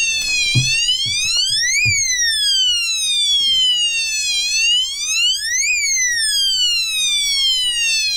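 Bilge high-water alarm sounding, set off by water rising in the engine-room bilge: a siren that falls slowly and climbs back quickly, repeating about every four seconds. A few light knocks in the first two seconds.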